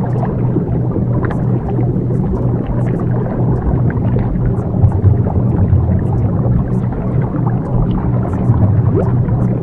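Ambient soundscape: a steady low drone under a dense rushing noise, with faint scattered high ticks. This is the continuous background bed of a subliminal affirmation track.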